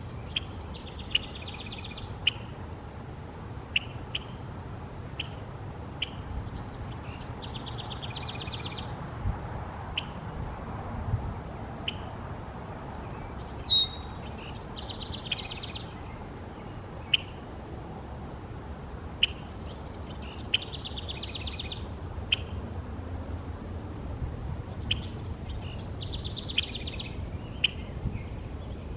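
Red-winged blackbird singing its song with a buzzy trill, repeated about every six seconds, with short sharp call notes between songs. A low steady rumble runs underneath.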